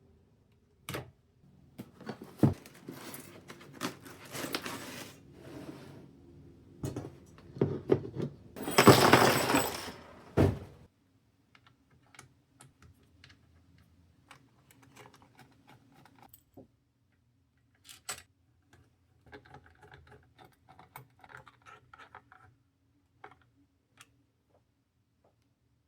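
Hands working on computer parts during a CPU cooler swap: scattered clicks, knocks and rustles. The loudest part is a noisy burst lasting about two seconds, around nine seconds in. After it come only faint, light ticks and taps.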